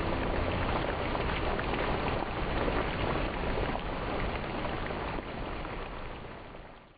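Many water drops falling onto a shallow pool's surface, a dense run of small splashes that fades out near the end.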